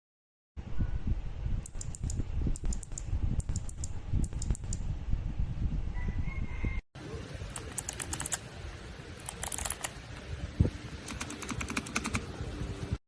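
Clicky Kailh Box White keyboard switches being pressed in quick runs of sharp clicks. There is a cut about seven seconds in, and the first part carries a heavy low rumble under the clicks.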